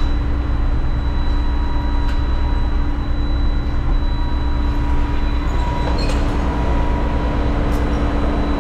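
Front-load garbage truck's diesel engine running steadily, a low even rumble with a couple of light clicks in the second half.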